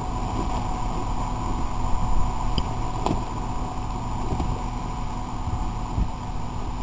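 Off-road pickup truck's engine running steadily as the truck crawls up a steep, rocky hill, short of momentum. A single sharp click about three seconds in.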